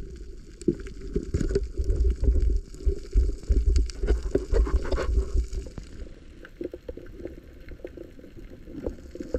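Muffled underwater water noise heard through an action camera's waterproof housing: low gurgling and rumbling with many short knocks as a free diver swims, busy for the first five or six seconds, then calmer.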